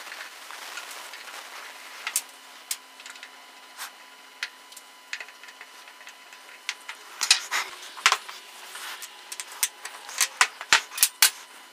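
Small metal clicks and clinks of screws and small parts of an antique hand drill being worked loose with a screwdriver and set down on the bench and into a steel parts dish: scattered single taps, with quick clusters of clinks about seven seconds in and again near the end.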